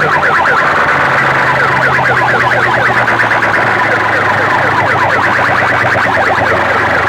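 A loud electronic siren-like effect played through a DJ sound system: rapid falling chirps, several a second, over a steady low drone.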